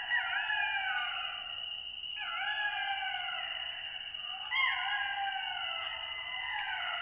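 A pack of golden jackals howling together: several high, wailing voices overlap and slide down in pitch. New howls break in with a quick rise and fall at the start, about two seconds in and again about four and a half seconds in.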